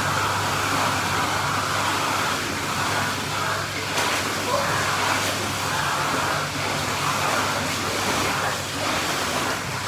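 Pool water churning and splashing as swimmers move through it, over a steady low hum.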